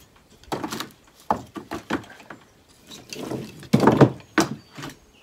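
Split hickory chunks dropped by hand into a plastic bucket, landing as a series of irregular wooden knocks and clunks, the loudest about four seconds in.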